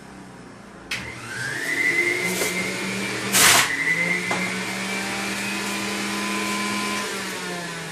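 Electric juicer switching on about a second in, its motor spinning up with a rising whine and then running steadily. About halfway through there is a short loud burst of grinding as broccoli is pushed through the feed chute, and the motor eases off near the end.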